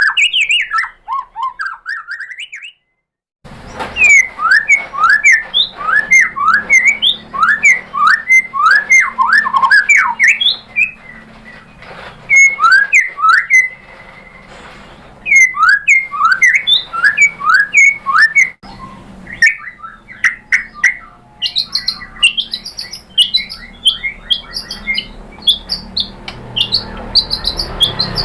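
White-rumped shama singing: loud, rapid series of rising whistled notes, broken by a short silence about three seconds in. Near the end the phrases move to higher, quicker notes.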